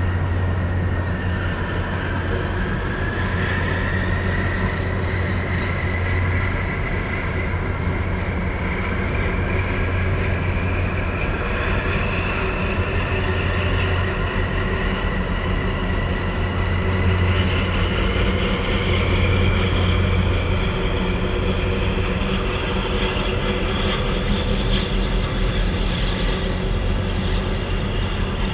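Marine diesel engines of a harbour tug and a large container ship passing close by: a deep, steady drone with a high whine that slowly rises in pitch.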